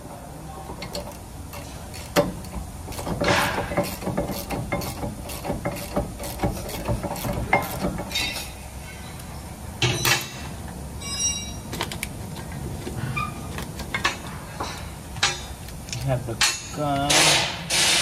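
Metal tools clicking and clinking against a rear brake caliper bracket as a socket ratchet is worked on the bracket bolts, with scattered sharp metallic knocks and a brief ringing clank about ten seconds in.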